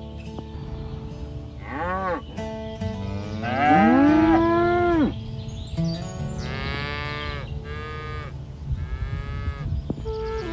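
Cattle mooing: four calls, the loudest a long moo that rises and then drops off about four seconds in, with higher, shorter calls after it. Soft background music with held notes runs underneath.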